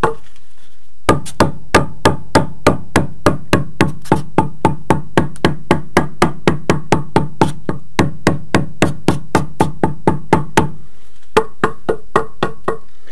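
Hammer tapping a white aerated concrete wall block over and over, about three or four blows a second, to bed it down into its glue. The tapping pauses briefly near the end, then a few more blows follow.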